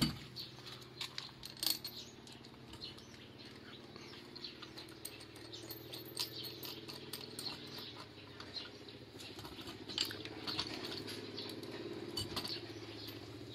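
Light metallic clicks and taps as the metal mounting bracket and bolts of a core-drill stand are handled and fitted against a wall, over a low steady hum.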